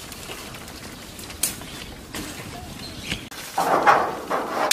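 Dry sticks crackling and snapping in a wood cooking fire, with a few sharp cracks, then a louder burst of rustling and snapping from about three and a half seconds in as more sticks are pushed into the fire.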